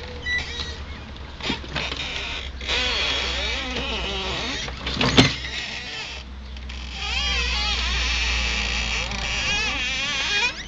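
Large model tank's drive motors whining, their pitch rising and falling as the speed changes, with the tracks and running gear working over a step edge. There is one sharp knock about five seconds in, and the whine grows louder and busier in the second half.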